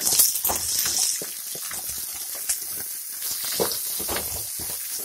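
Chopped aloe vera pods frying in hot mustard oil in a kadhai, sizzling loudest in the first second, while a wooden spatula stirs them with repeated scrapes and knocks against the pan.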